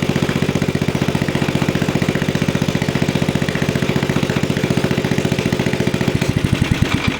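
Replacement single-cylinder-type small engine on a Snapper riding mower running with no exhaust fitted, very loud, firing in a rapid steady beat. Near the end it is shut off by grounding out the ignition, and the beats slow and spread out as it coasts to a stop.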